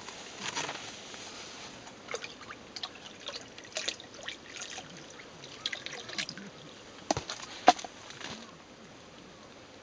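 Water trickling and dripping, with scattered small clicks and taps and one sharper click near the end.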